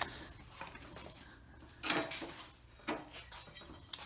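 Four light metallic clinks and knocks, the loudest about halfway through, as a small piece of sheet steel is handled and set down on a workbench.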